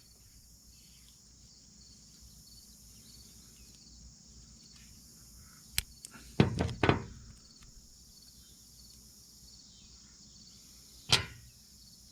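Insects trilling steadily in the background, their high buzz coming and going in pulses. A few sharp clicks and knocks from handling tools and the stock come about six seconds in and again near the end.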